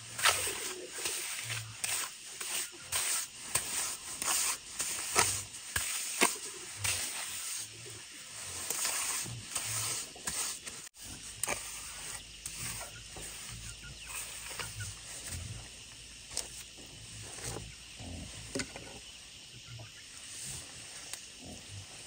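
Hand trowel scraping and slapping across wet cement as the floor is smoothed, in short repeated strokes. The strokes are frequent and sharper in the first half and turn softer and sparser after a break about eleven seconds in.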